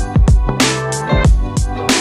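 Background music with a steady beat: a pounding low drum over held instrument notes.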